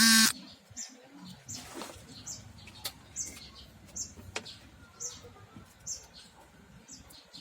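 Small birds chirping, short high chirps about once a second, with two sharp clicks in the middle. A loud buzzing tone cuts off just after the start.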